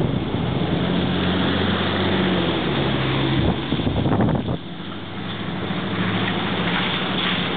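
R32 subway train running along the elevated line overhead: a steady rumble with a low motor hum, briefly roughened about halfway through, with wind on the microphone.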